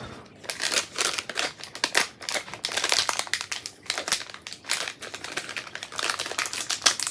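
Crinkling and rustling of a snack packet of toffee apple and cinnamon popcorn being handled and opened, a dense run of quick crackles.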